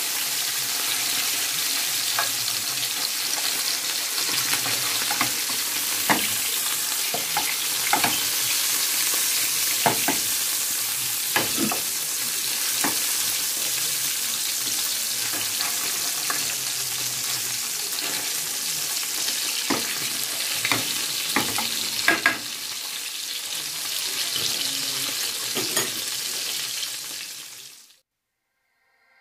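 Two whole mackerel frying in hot oil in a ridged grill pan: a steady sizzle with scattered spits and pops of oil. The sound fades out near the end.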